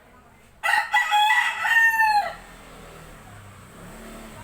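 A rooster crowing once, a loud call of about a second and a half that drops in pitch at the end.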